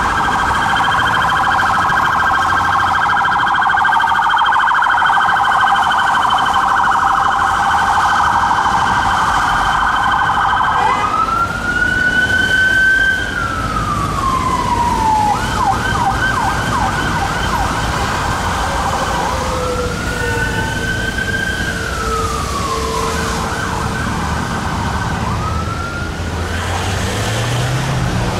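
Police car siren on a Metropolitan Police BMW X5 armed response vehicle, switching between modes: a fast yelp, then about 11 seconds in a slow wail that rises and falls, back to the yelp, another wail around 20 seconds in, and a rising wail near the end. Road traffic runs underneath.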